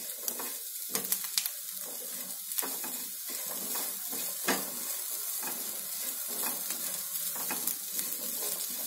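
A spatula stirring and scraping boiled chickpeas and grated coconut around a non-stick frying pan on a gas burner, with a steady light sizzle and frequent small clicks of the spatula on the pan.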